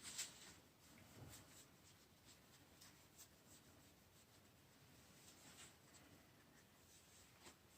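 Near silence with faint scratchy rubbing strokes and small handling clicks as vacuum powerhead parts are cleaned by hand. The strongest stroke comes right at the start.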